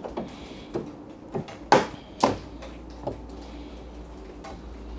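Hands working on a dryer's bare sheet-metal top frame while its screws are taken out: a string of sharp clicks and light metal knocks, about seven in all, the loudest a little under two seconds in.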